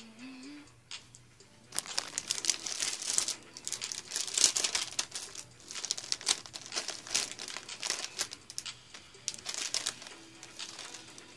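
Plastic potato chip bag crinkling and rustling in the hands, starting about two seconds in and going on irregularly until near the end.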